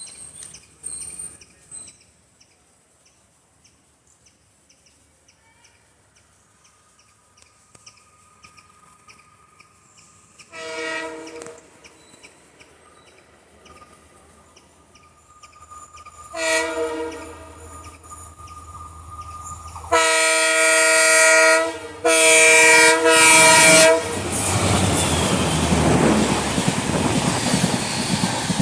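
EMD diesel locomotive horn sounding a chord of several tones: two short honks about ten and sixteen seconds in, then two long loud blasts from about twenty seconds in. From about twenty-four seconds in the locomotive and its train run past with heavy rumbling and wheel noise. A faint regular ticking is heard during the first ten seconds.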